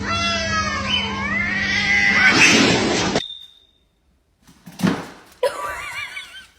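A cat yowling in long wailing calls that glide up and down in pitch. The sound cuts off suddenly about three seconds in, and more wavering cries start again about a second and a half later.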